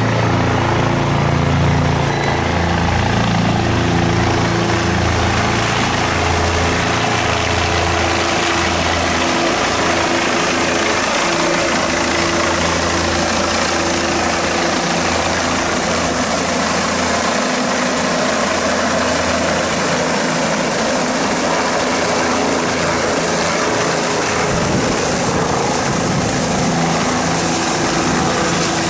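Helicopter flying in low overhead and descending to land, its rotor and turbine engine making a loud, steady whir.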